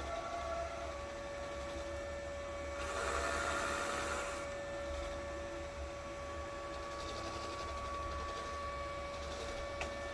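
Robot vacuum cleaner running with a steady motor hum. About three seconds in, a louder hissing rush lasts about a second and a half.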